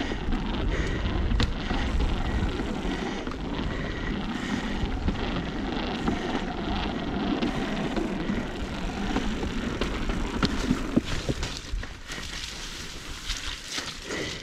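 Mountain bike riding over rock: wind rushing over the microphone and tyres rumbling on the rock, with scattered sharp knocks and clicks from the bike. The rumble eases near the end.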